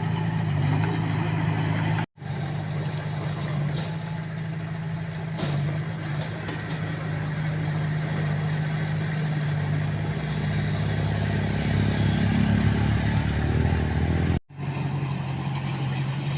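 Komatsu D21A bulldozer's diesel engine running steadily, getting heavier and deeper in the second half as it works. The sound cuts out briefly twice, about two seconds in and near the end.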